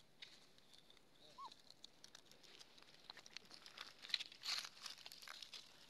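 Faint crinkling and crackling of a yellow wrapper being pulled and handled by a young macaque, getting busier and louder after about three seconds, with one short high chirp about a second and a half in.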